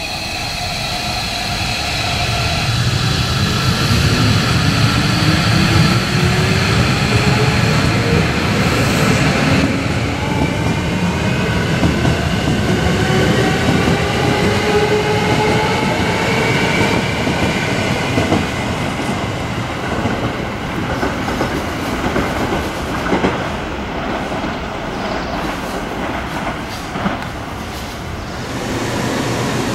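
Hankyu 1000 series electric train's Toshiba IGBT VVVF inverter whining as the train accelerates, a set of tones rising together in pitch. A few sharp clicks come near the end.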